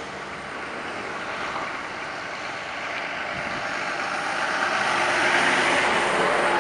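Semi truck pulling a box trailer driving past close by: engine and tyre noise builds as it approaches and is loudest as the trailer's wheels roll past near the end.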